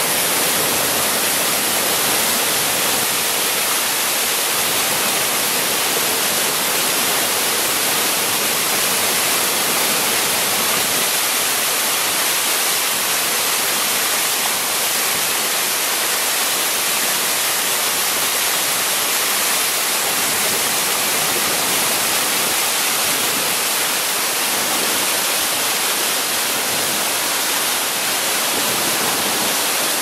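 Small waterfall on a moorland brook: water pouring over a stone lip into a churning pool, a steady unbroken rush of white water.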